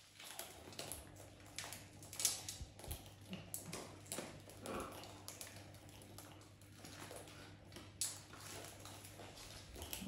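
Irregular soft clicks and crunches of pets eating, over a faint steady hum.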